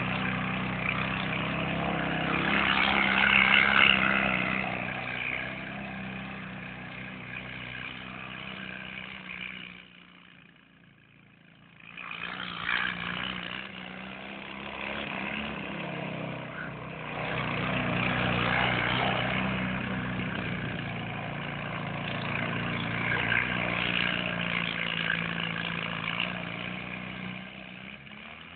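Homemade buggy's Fiat 126p (Maluch) 650 cc engine running hard as it is driven around a dirt field, its sound swelling and fading as the buggy passes near and away. It drops away briefly around ten seconds in, then picks up again.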